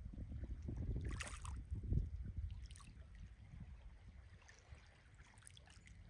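Wind buffeting the microphone as an uneven low rumble, with a short splashy hiss about a second in and a few fainter ones later.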